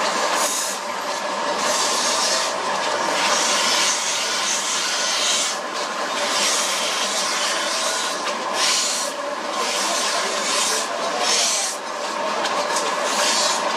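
Belt-driven grinding wheel running steadily while scissor blades are pressed against it for sharpening: a hissing grind that swells and fades again and again with each pass of the blade, over the steady whir of the wheel and its drive.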